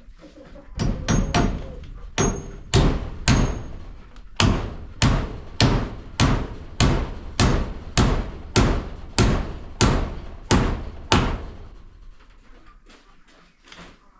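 Hammer driving a nail: a few quick taps to start, then a steady run of blows a little under two a second, about eighteen in all, stopping near the end.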